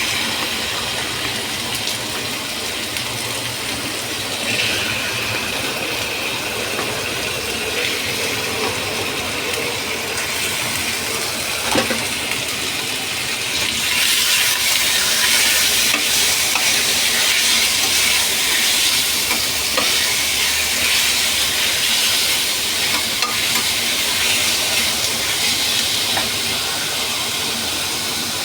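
Food frying in hot oil in a pan, sizzling steadily and growing louder about halfway through, with a single short knock a little before that.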